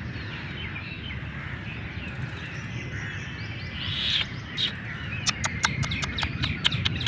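Small birds chirping steadily in the background. From about five seconds in, a rapid, even run of sharp clicks, several a second, sounds over them and is the loudest thing heard.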